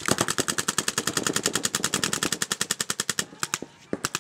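Paintball markers firing in a rapid string of sharp pops, about a dozen shots a second. The string stops about three seconds in, followed by a few single shots.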